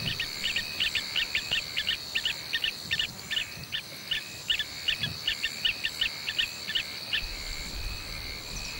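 Wild bush ambience: a steady high-pitched insect trill, with a chirping call repeated about three times a second over it that stops about seven seconds in.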